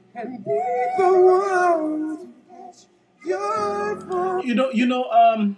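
Live ballad duet: a male and a female voice singing in harmony over piano, in two phrases with a short break about halfway.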